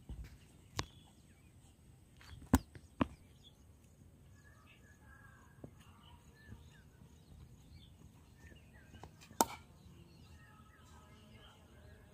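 A few sharp knocks of a cricket bat striking the ball, one about a second in, a quick pair about two and a half seconds in, and the loudest about nine seconds in.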